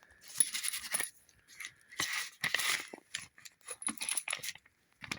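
A steel axial thrust bearing part from a lathe spindle clinking and scraping as it is handled and turned over by hand, in a few short bursts of metallic rattle and clicks.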